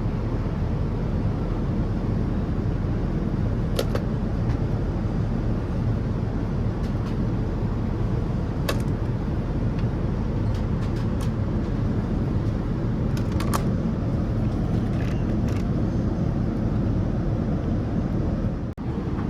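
Steady cabin noise of a Boeing 787-9 airliner in flight: a constant low rumble and rush of engines and airflow, with a few faint clicks and a brief dip in level just before the end.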